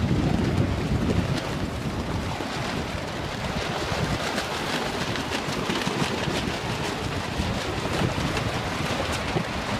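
Wind buffeting the microphone aboard a small sailing keelboat under way, over the steady rush of choppy water along the hull. The low rumble of the wind is heavier in the first second, and small crisp ticks run through the rest.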